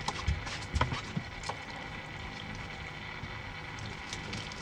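A few sharp knocks and clicks from rods and a landing net being handled on a pontoon boat deck while a fish is landed, over a steady low hum. The knocks stop after about a second and a half.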